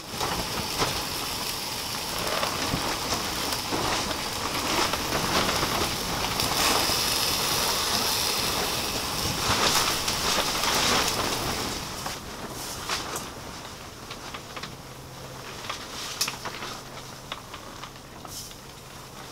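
Skewers of meat and vegetables sizzling and crackling on a hot grill grate, louder for the first twelve seconds or so and then settling down. A few sharp clicks of metal tongs come near the end.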